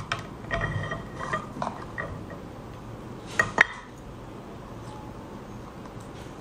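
Eating a cooked lobster claw: wet biting, chewing and sucking at the meat, with scattered small clicks and crackles. Two sharp clicks stand out about three and a half seconds in.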